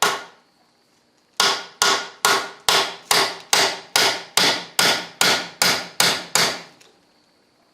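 Hammer blows on a cam bearing installer tool, driving a cam bearing into its bore in the engine block: one blow, a short pause, then about a dozen steady blows at roughly two a second, each ringing briefly.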